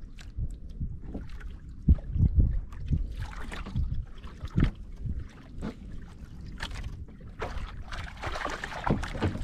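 Water sloshing against the hull of a small outrigger boat, with wind rumbling on the microphone and a few sharp knocks, the loudest about two seconds in.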